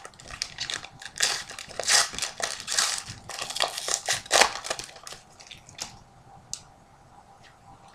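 A trading card pack's wrapper crinkling and tearing as it is ripped open by hand, dense rustling for about five seconds, then a few light ticks and rustles as the cards inside are handled.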